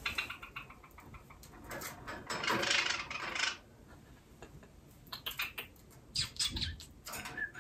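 A white Java sparrow, held in the hand, giving a string of short, sharp chirps and clicking calls, with a brief pitched call near the end. The bird is angry at being handled.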